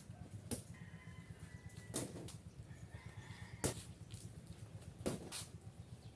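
Sharp knocks come every second or two, six in all, over a low steady hum, while a rooster crows faintly in the background.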